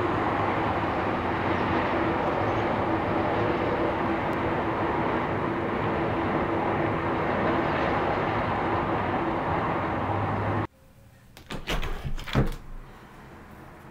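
Steady distant city traffic noise, cutting off abruptly about eleven seconds in. A few knocks and clunks of a plastic (PVC) window frame being handled follow.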